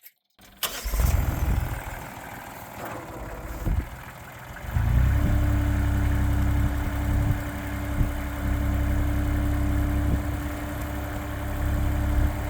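Mini skid steer's engine starting about a second in and idling, then throttled up about five seconds in, running louder with a steady whine over the engine note.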